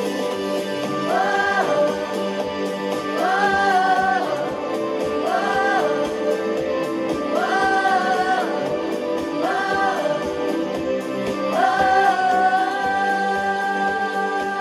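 A children's worship song playing: a sung melody in short held phrases over a steady backing track, with one long held note near the end.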